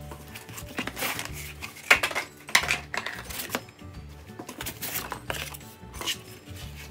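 Background music with a steady bass line, over irregular scraping and rustling of cardboard as packing strips and inserts are slid and lifted out of a shipping box. The loudest scrapes come about two seconds in.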